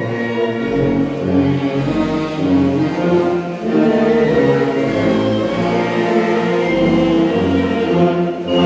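Music: a choir singing over orchestral accompaniment, with long held notes.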